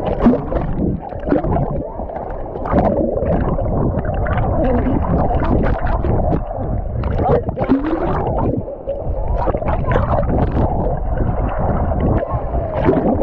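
Muffled wave-pool water sloshing and gurgling around the camera, with indistinct voices mixed in.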